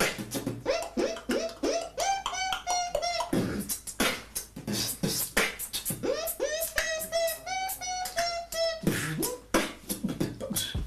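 Beatboxing: sharp mouth clicks and snare-like hits in a quick rhythm, with a hummed pitched line laid between them twice, each time rising and then held.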